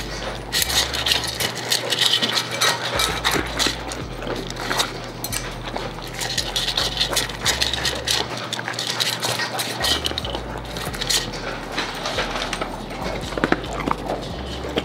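Rottweilers eating dry kibble from metal dog bowls: continuous irregular crunching and chewing, with clinks of kibble against the bowl.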